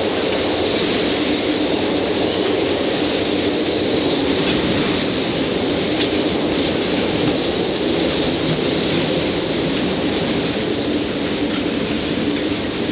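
Hurricane-force wind rushing steadily and loudly, the gusts blowing at gale strength over the anchorage.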